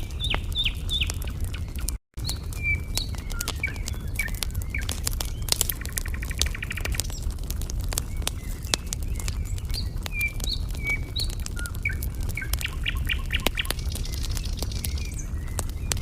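Wood fire crackling with frequent sharp pops over a steady low rumble, while small birds chirp and twitter, with a couple of quick trills. The sound cuts out for a moment about two seconds in.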